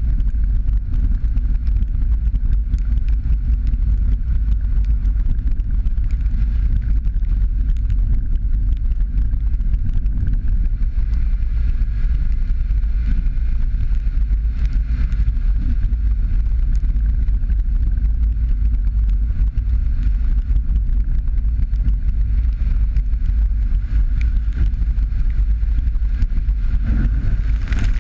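Jeep Patriot driving at a steady pace along a wet dirt road: a loud, steady low rumble of engine and tyre noise.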